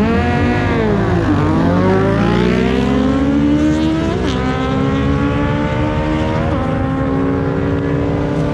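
Small-displacement motorcycle engine at full throttle in a drag run. Its pitch drops over the first second or so, then climbs steadily, dipping briefly at upshifts about four and six and a half seconds in.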